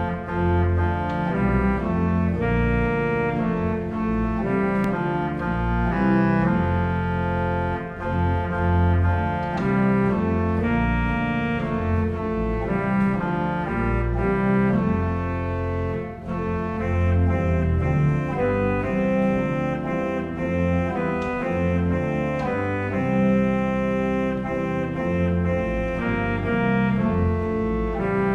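Organ playing a hymn in slow, held chords over a deep pedal bass.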